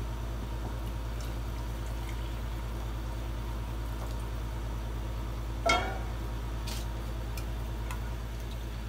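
Hot water poured from a small saucepan into a ceramic mug, a soft trickle over a steady low hum. A single ringing clink comes a little past halfway, and a few light spoon ticks follow near the end as the instant coffee is stirred.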